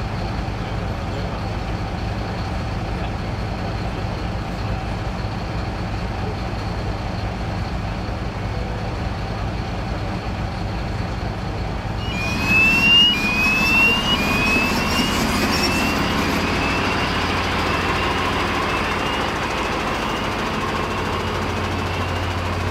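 Heavy diesel engine idling steadily. About twelve seconds in, a louder machine noise joins it, carrying a series of short rising whistles that repeat about once a second and grow fainter.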